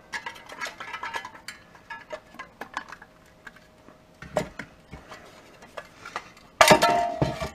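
Sheet-metal panels and small parts of a duct booster fan housing clicking and clinking as they are handled and pulled apart, then a loud metal clatter about six and a half seconds in.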